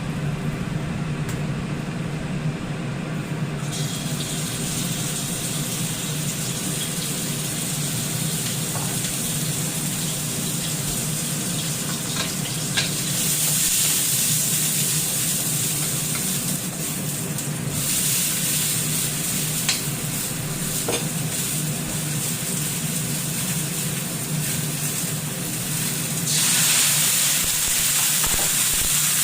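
Food stir-frying in a hot pan, sizzling, with a spatula scraping and clicking now and then. The sizzle comes in a few seconds in and gets louder in the middle and again near the end, over a steady low hum.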